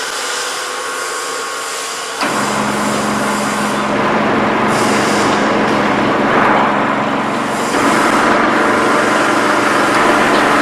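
MJ F6 multi-rip saw machine running with a steady mechanical noise. About two seconds in it gets suddenly louder, with a steady hum added.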